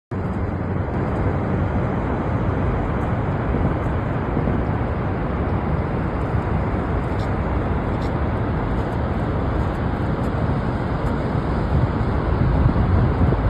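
Steady low rushing roar of Niagara Falls' falling water, even and unbroken.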